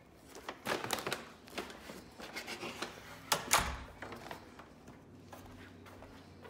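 Brown paper grocery bags rustling and bumping as they are carried at a walk, with scattered knocks and taps. The loudest rustle comes about three and a half seconds in, and the handling grows faint after about four seconds.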